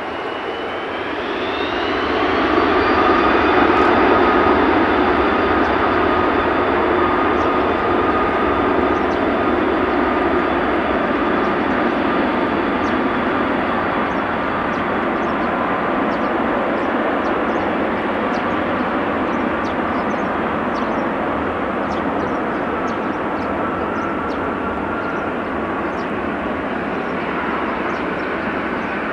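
Boeing 747-400F freighter's four turbofan engines spooling up to takeoff thrust: a whine rising in pitch and loudness over the first few seconds. It then settles into steady, loud jet engine noise with a held whine as the aircraft rolls down the runway away from the listener, slowly easing.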